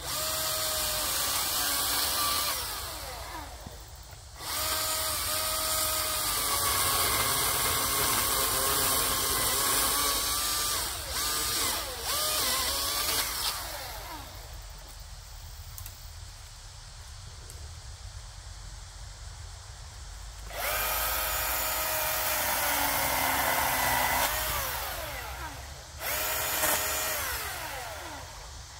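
Milwaukee M18 FUEL 14-inch cordless electric chainsaw cutting a fallen log. It runs in four bursts of high motor whine, one long and three shorter, and its pitch sags and wavers as the chain bites into the wood.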